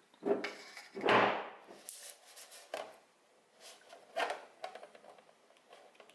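Handling noises: a string of short, irregular rubbing and knocking sounds, the loudest about a second in.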